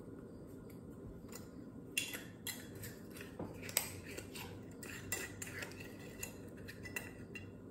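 Scattered light clicks and taps of a small container being handled over a mixing bowl, starting about two seconds in.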